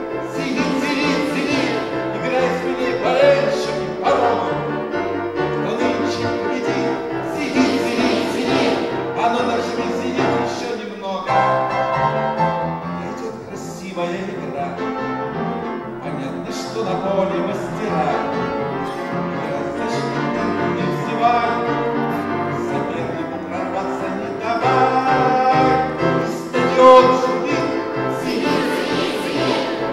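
A man singing into a microphone while accompanying himself on a grand piano.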